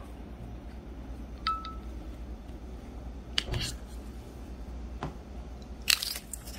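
Small clicks and taps from handling an AirPods Pro 2 charging case, with one brief electronic chime-like beep about one and a half seconds in and a short rustle near the end.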